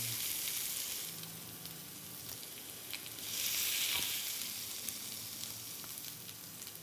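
Pre-cooked chicken strips sizzling in olive oil on a hot grill, a steady frying hiss that swells louder for about a second around the middle.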